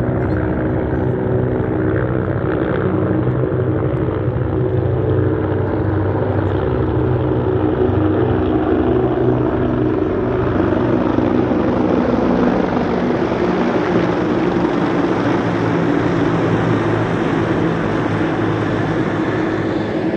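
Formation of helicopters flying low overhead: a steady rotor and engine drone that grows fuller as they come over.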